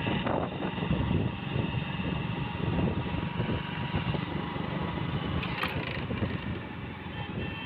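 Motorcycle engine running under way, with steady road and riding noise. A short burst of noise about five and a half seconds in.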